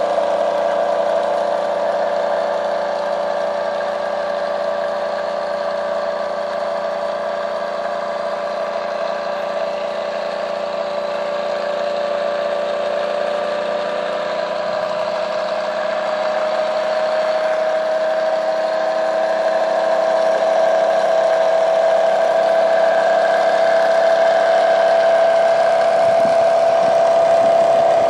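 Bedini-style pulse motor running with its rotor spinning, making a steady electrical-mechanical hum. Its pitch climbs slowly from about halfway through as the rotor speeds up.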